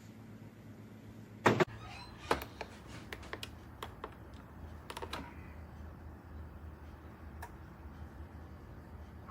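Clicks and knocks of something being handled: one loud knock about a second and a half in, then several lighter clicks over the next few seconds, over a low steady hum.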